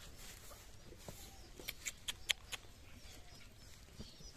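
A cloth rubbing faintly over a wet calf's coat as it is dried, with a quick run of about five short, sharp, high clicks or chirps near the middle.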